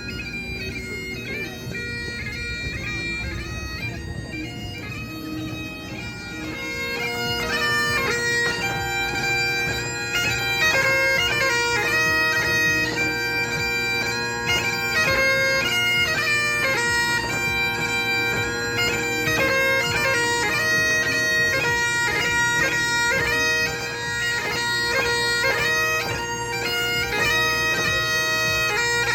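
Bagpipes playing a tune over their steady drones, growing louder about seven seconds in.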